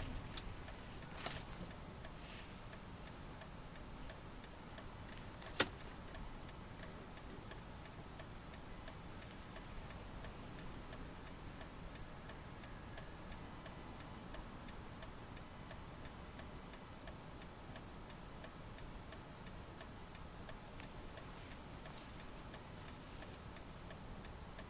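Steady, rhythmic ticking inside a Toyota Alphard's cabin while it is driven, over a low road rumble, with one sharp click about five and a half seconds in.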